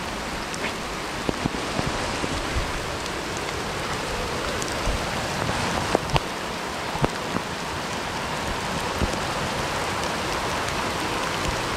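Steady rain falling, an even hiss with scattered drops ticking sharply close by.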